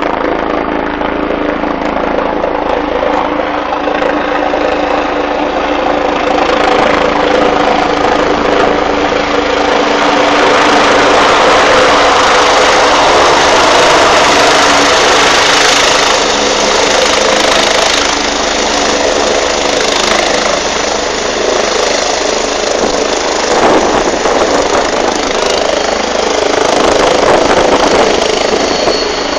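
Helicopter approaching and landing. Its rotor and engine noise grows louder as it comes in close overhead, is loudest about halfway through, then eases a little as it sets down.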